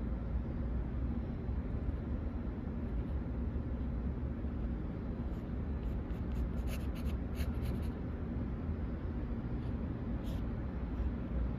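A pen scratching on sketchbook paper in short hatching strokes, bunched in the middle with one more near the end, over a steady low room hum.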